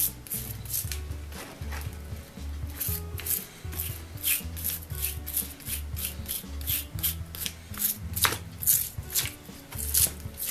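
Stiff brush scrubbing the greasy gear and bearing race of an antique breast drill in a tray of paint thinner. The scrubbing comes in quick repeated strokes, about two a second.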